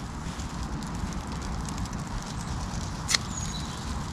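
Steady low background rumble, with a single short rip of duct tape being torn by hand about three seconds in.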